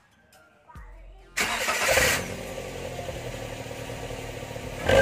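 Daihatsu Gran Max pickup's petrol engine started through a newly fitted Srigala aftermarket exhaust. About a second and a half in it catches with a sudden loud burst, then settles into a steady idle through the exhaust.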